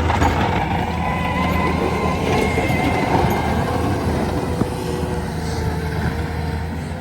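Diesel engine of a Cat 289 compact track loader running steadily under load while plowing snow, with a faint whine rising slightly about two seconds in.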